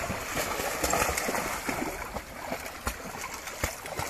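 Water splashing and sloshing from dogs swimming and paddling, with many short, irregular splashes.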